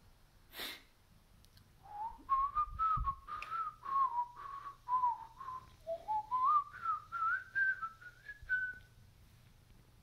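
A person whistling a wandering tune with their lips, note after note that dips and rises and climbs higher toward the end, stopping about nine seconds in.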